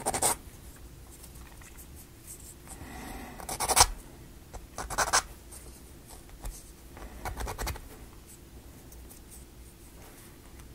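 Plywood model-kit parts being handled and pressed together: a handful of short scrapes and clicks of wood on wood, with quieter rubbing between.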